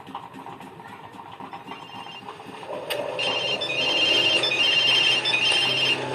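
The repaired Haier 32-inch LED TV's speaker starts playing the AV input's audio about three seconds in, after a click. The audio is a repeating high electronic ringing tune in short phrases with brief gaps, loud against the quiet room before it.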